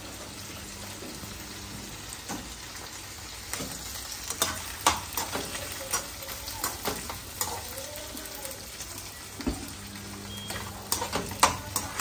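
Tomatoes, onions, garlic and dry chilies sizzling in a frying pan. From about three and a half seconds in, the sizzle gets louder and a spoon stirs the pan, clicking and scraping against it.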